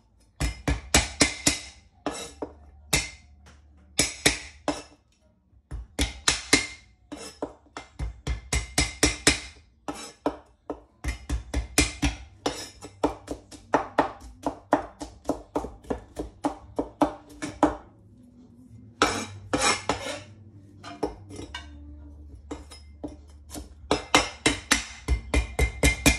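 Chinese cleaver chopping garlic on a wooden cutting board: runs of quick knocks, several a second, broken by short pauses.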